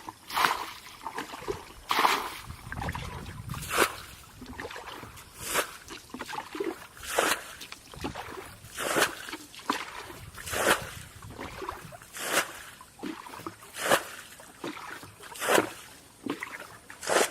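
Water splashing in a steady rhythm, about one stroke every second and a half to two seconds, with softer trickling and sloshing between strokes.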